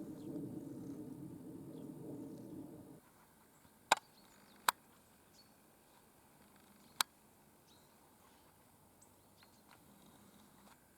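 Footsteps rustling through dry autumn leaves and grass, stopping about three seconds in. Three sharp clicks follow, two close together and one a couple of seconds later, over faint small-bird chirps.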